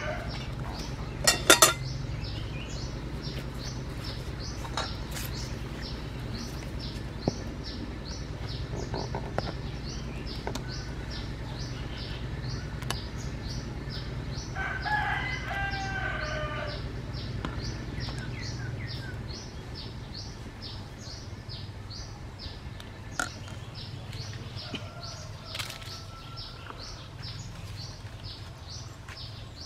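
Chickens calling in the background over a steady train of high chirps a couple of times a second, with a louder call about halfway through. About a second and a half in, a sharp metallic clank as the lid of a steel cooking pot is lifted off.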